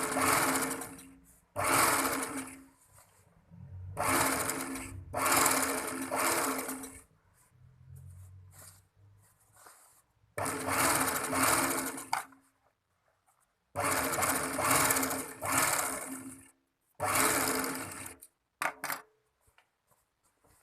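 Overlock sewing machine (serger) stitching fabric in short runs of one to two seconds, starting and stopping about seven times with pauses between, then two very brief blips near the end.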